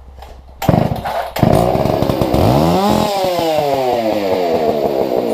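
Husqvarna 266 two-stroke chainsaw engine starting: a short burst about half a second in, then it catches about a second and a half in and keeps running, its speed dipping and rising again about three seconds in. It is a junkyard saw firing up on fresh fuel.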